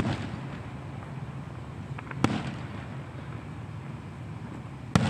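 Aerial firework shells bursting overhead: three sharp bangs, one at the start, one a little over two seconds in and one near the end, over a steady low background noise.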